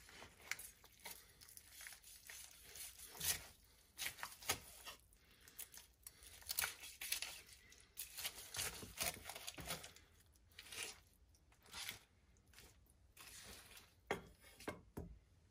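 Knife cutting through the crispy battered skin of a deep-fried half chicken while hands pull the meat apart on a wooden cutting board: irregular crunching and tearing sounds.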